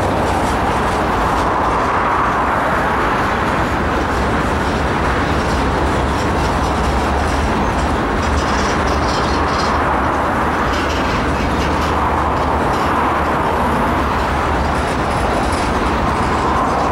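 Freight train cars, empty centerbeam flatcars nearest, rolling past: a steady, loud rumble of steel wheels on the rails, with light rattling.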